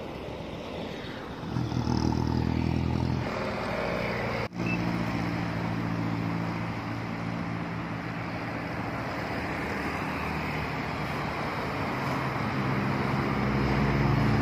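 Road traffic passing close: a vehicle engine going by in the first few seconds, then, after an abrupt break about four and a half seconds in, a Budiman coach's diesel engine running steadily with tyre noise as it rounds the bend and passes, growing louder near the end.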